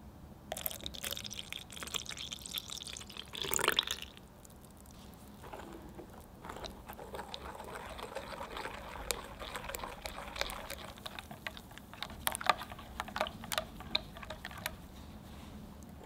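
Hot milk poured into a glass bowl of egg yolks, sugar and cornstarch over the first few seconds. After a short pause, the thin custard mixture is stirred with a silicone spatula, with light clicks of the spatula against the glass near the end.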